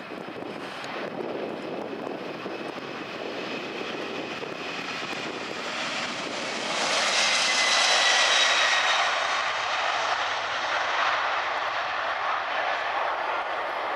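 Airbus A300B4-605R's two General Electric turbofans at take-off power during the take-off roll, a steady jet noise with a high whine. It grows louder to its peak about seven to nine seconds in as the airliner passes close by, then eases slightly.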